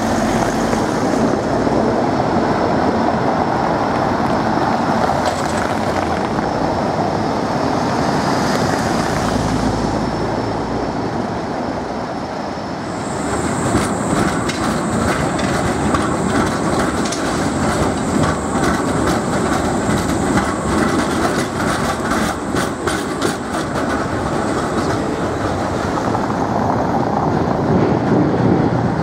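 Tram running on street track, with the wheels clicking over rail joints. About halfway through a steady high-pitched squeal sets in and holds almost to the end, alongside a run of quick clicks.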